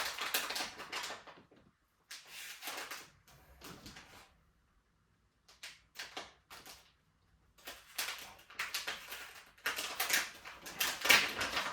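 Irregular bursts of rustling and scraping as packaging is pulled off and handled during a bike unboxing, with short quiet gaps and the loudest burst near the end.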